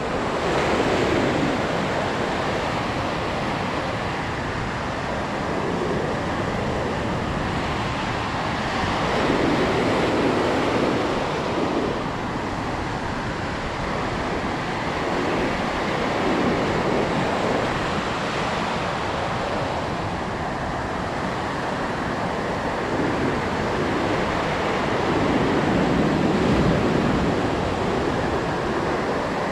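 Pacific Ocean surf breaking on a sandy beach: a continuous wash of waves that swells louder every several seconds as each wave breaks.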